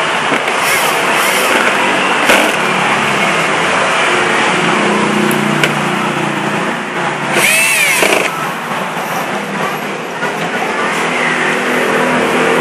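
Steady motor-vehicle traffic noise, with a short louder sound that rises and falls in pitch about seven and a half seconds in, and a few faint clicks.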